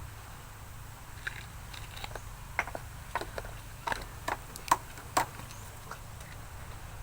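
Irregular light clicks and knocks, scattered through most of the stretch with the sharpest about two-thirds of the way in, over a steady low hum.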